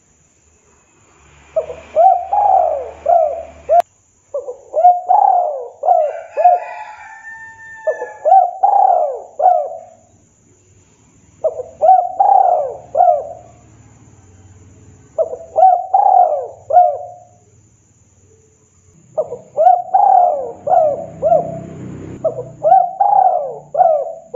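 Spotted dove cooing: seven phrases, each a run of four or five quick coos that rise and fall in pitch, with a pause of one to two seconds between phrases.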